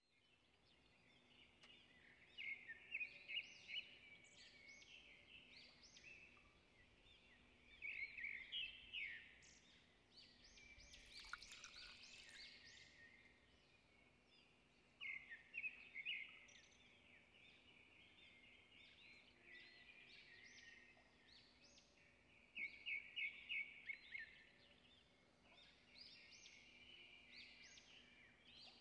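Birds chirping and singing faintly in quick clusters of rapid trilled notes every few seconds, over a faint steady hum.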